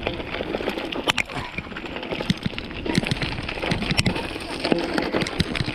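Mountain bike rolling over a rough dirt trail, its frame and chain rattling, with many sharp knocks from the bumps and a steady rumble of wind on the microphone.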